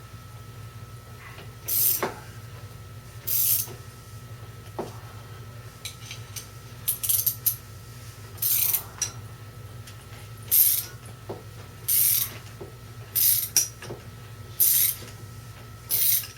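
Ratchet wrench clicking in short bursts, about one every second and a half, as it slowly cranks the pressing bolt of a motorcycle chain press tool, pressing the side plate onto the drive chain's new connecting link.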